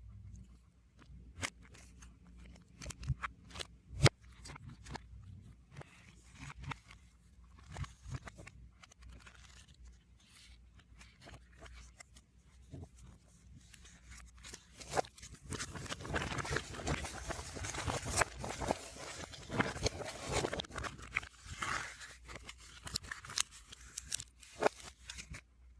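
Hands handling a music album and its packaging, played backwards: scattered clicks and light rustles at first, then from about the middle a dense run of crinkling and scraping of paper and plastic wrap.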